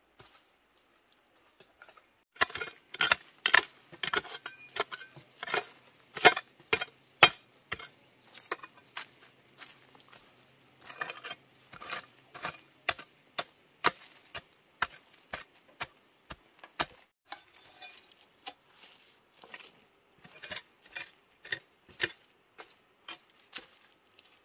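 Irregular series of sharp knocks and snaps, two or three a second, starting about two seconds in.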